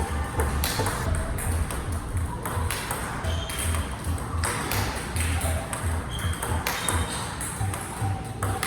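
Table tennis ball being hit back and forth in a rally: a quick run of sharp clicks of the ball off paddles and table, over background music with a steady beat.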